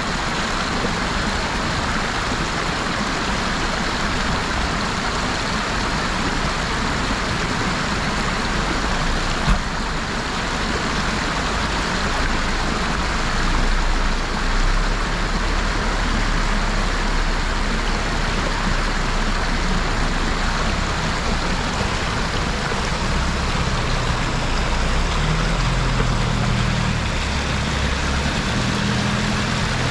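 An off-road 4x4's engine running under a loud, steady rushing noise. The engine grows louder about halfway through and its pitch steps up and down near the end. A single knock sounds about ten seconds in.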